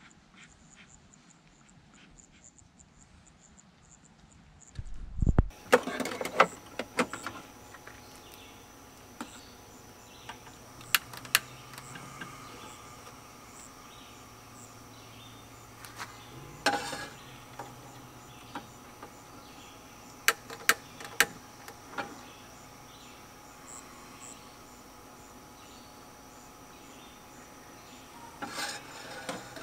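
Fairly quiet for the first five seconds, then a steady high insect chirring sets in, with scattered sharp knocks and clicks over it.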